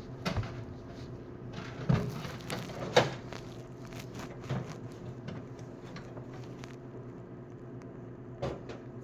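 Scattered sharp clicks and knocks of small metal driver bits and tools being handled, about five in all, the loudest two near two and three seconds in, over a steady low hum.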